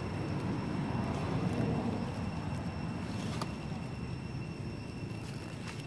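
Steady low outdoor background rumble, with a faint click about three and a half seconds in.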